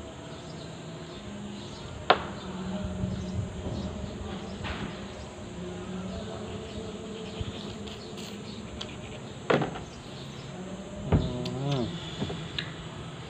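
A steady low hum throughout, with three sharp knocks about two, nine and a half and eleven seconds in. A short wavering tone comes just after the last knock.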